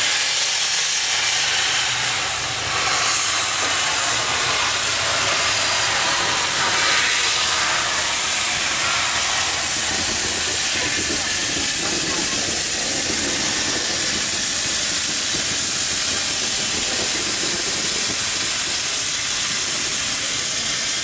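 Steam hissing from the cylinder drain cocks of 6029, an NSW AD60-class Beyer-Garratt steam locomotive, as one loud, steady hiss.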